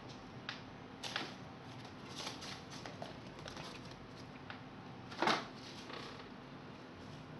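Scattered crinkling and rustling of plastic bags and a paper packet as a small kitten pushes among them, with a louder rustle about five seconds in.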